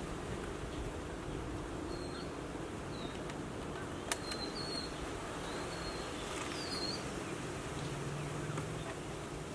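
Outdoor ambience: small birds chirping briefly a few times over a steady low hum, with one sharp click about four seconds in.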